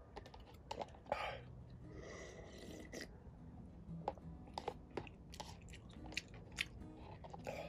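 Close-miked eating of ramen: chewing and crunching with many short sharp clicks of the mouth and utensils, and a couple of longer rushing sounds about a second in and between two and three seconds in.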